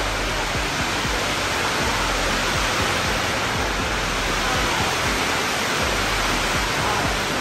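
Steady, even rushing noise with no breaks or rhythm, like falling water.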